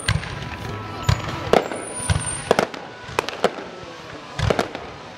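Aerial fireworks bursting: a string of booms and sharp cracks, about one or two a second.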